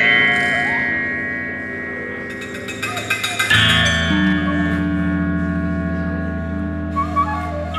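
Live experimental music on instruments built from decommissioned guns. A struck metal chord rings out and slowly decays; about halfway through, a low sustained drone comes in with another bright metallic strike. Near the end a high whistle-like note begins.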